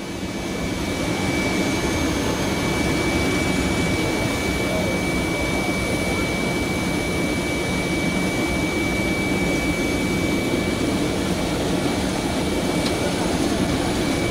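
Jet airliner's turbine running steadily: a constant high whine over a low rumble, swelling up over the first second or so.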